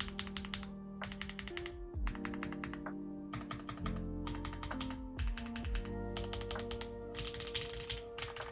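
Rapid typing on a mechanical keyboard fitted with Akko Mirror HMX-style switches: a quick run of clacky keystrokes, under background music.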